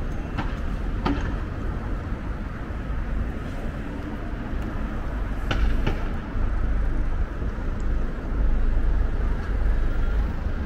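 City street ambience: road traffic running with a deep, steady rumble, and a few sharp taps, about a second in and twice around the middle.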